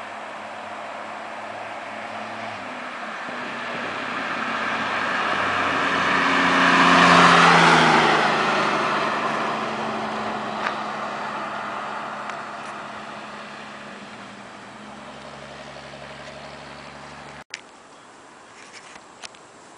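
A car driving past: engine and tyre noise grows louder over several seconds, peaks about seven seconds in, then fades away with the engine note dropping as it goes. About seventeen seconds in the sound cuts off abruptly, leaving a quieter steady hum.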